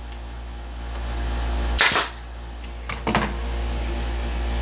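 Wooden table parts being handled and knocked together while being test-fitted: one sharp knock about two seconds in, then a few lighter clicks a second later, over a steady low hum.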